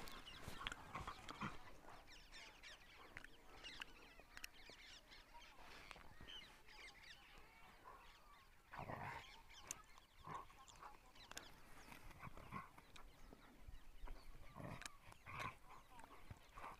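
Faint outdoor birdsong over near silence: scattered short chirps and several honk-like calls, the clearest about nine seconds in and a few more in the second half.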